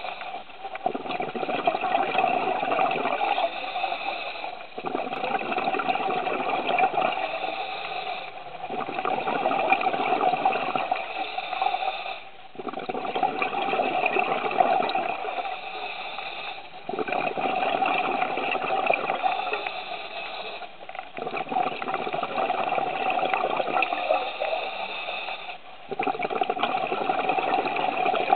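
Scuba diver breathing through a regulator underwater: a loud rush of exhaled bubbles lasting three to four seconds, repeating about every four seconds, with short quieter gaps for each inhale.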